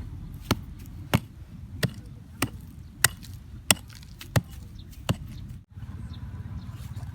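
A steady series of sharp, hard strikes, about one every two-thirds of a second, nine in all, like chopping or hammering with a hand tool. They stop about five seconds in. After a brief break, a steady low rumble takes over.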